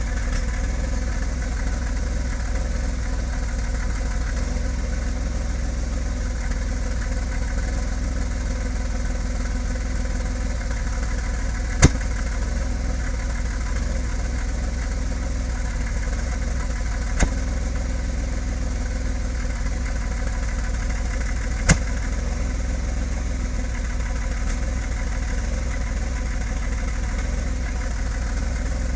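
BMW E34 525i's M50B25 2.5-litre straight-six, the non-VANOS version, idling roughly and steadily, with three sharp clicks, at about 12, 17 and 22 seconds in. The owner has already cleaned the idle control valve, checked the MAF and fitted new spark plugs, and suspects the ignition timing, the ignition coils or wires, or the O2 sensor.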